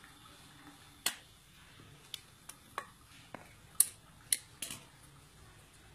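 Sharp metallic clicks and clinks, about eight of them at uneven intervals, from a metal hand tool working small lead fishing sinkers on a wooden block.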